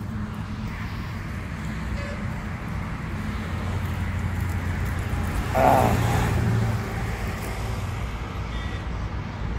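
Highway traffic running past steadily, with one louder vehicle going by about six seconds in.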